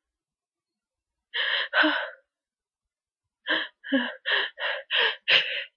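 A person's breathy gasps in the build-up to a sneeze: two drawn breaths, then a run of about seven short catching gasps that come faster toward the end.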